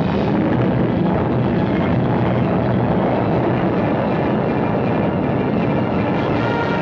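Continuous low rumbling roar of an atomic blast and its blast wave over a trench, on an old newsreel soundtrack.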